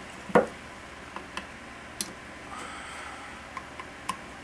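Scattered light clicks and knocks of rifle parts and tools being handled during assembly, the loudest a single knock about half a second in.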